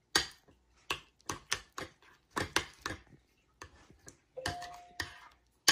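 Metal spoon clinking and scraping against a bowl while stirring thick curd, in uneven taps a few times a second.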